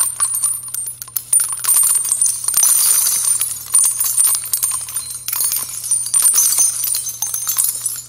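A title-card sound effect: a dense run of high, rapid jingling and tinkling clicks over a steady low hum that cuts off just after the card ends.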